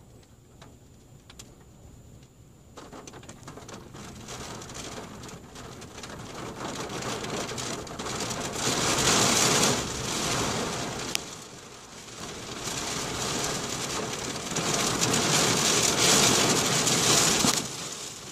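Rain on a car's windshield and roof, heard from inside: scattered drops at first, then a downpour that builds about three seconds in and comes in heavy surges. There is a single sharp tick a little past the middle.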